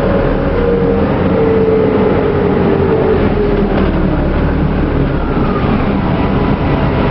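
Detroit Diesel Series 50G natural-gas engine and Allison B400R transmission of a 2000 New Flyer C40LF transit bus running, heard from inside the cabin. Over the low engine rumble a drivetrain whine falls steadily in pitch through the first few seconds as the bus slows.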